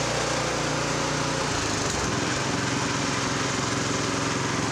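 Single-cylinder Honda GX-clone engine on a rototiller, running steadily at about 3600 rpm with no load, its note shifting about a second and a half in. It runs smoothly without hunting: the lean surge is cured by a slightly opened pilot jet.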